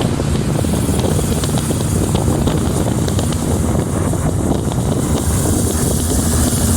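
Car driving at highway speed: steady road and engine noise with wind buffeting the microphone.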